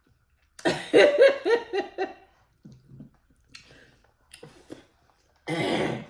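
A woman laughing in a quick run of short pulses, followed by small wet clicks and smacks of crawfish and crab shells being peeled and eaten, and a short, louder vocal burst near the end.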